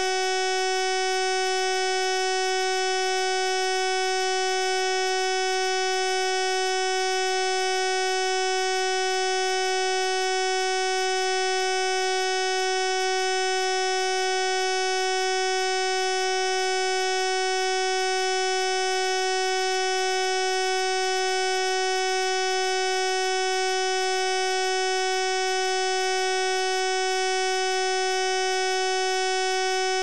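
A continuous steady electronic tone, one unchanging pitch with many overtones, held at a constant level.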